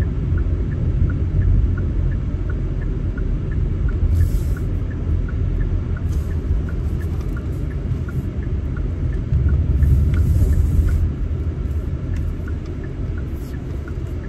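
Road noise heard from inside a moving car: a steady low rumble from the engine and tyres, with the turn signal ticking evenly.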